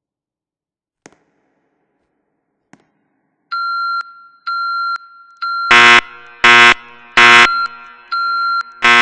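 Building fire alarm starting up. After near silence with two faint clicks, a high electronic tone begins pulsing about 3.5 seconds in. From about 6 seconds in, loud alarm horn blasts sound over it in groups of three with a pause between groups: the temporal-three evacuation pattern.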